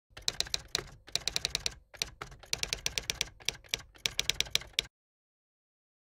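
Typewriter-style typing sound effect: rapid key clicks, about ten a second, in several runs with brief gaps, stopping abruptly about five seconds in.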